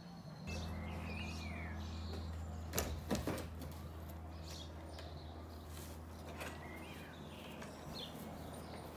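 Wooden shed door clicking and knocking about three seconds in as it is unlatched and opened, over a steady low hum, with birds chirping.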